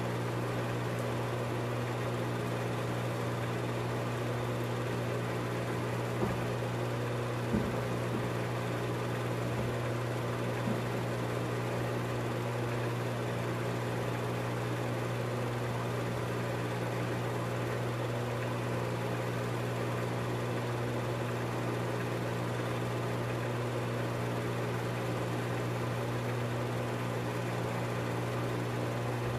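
Film projector running: a steady motor and fan hum with hiss, and a couple of faint clicks about six and seven and a half seconds in.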